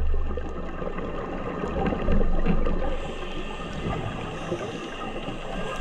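Underwater sound picked up by a camera in its housing over a coral reef: a dense steady crackle over a low rumble, with faint steady high tones, swelling briefly about two seconds in.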